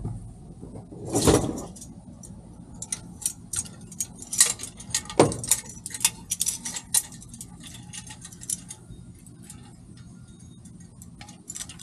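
Light metallic clinks and rattles of gear being handled, in a busy run in the middle and a few more near the end. A heavy thump comes about a second in.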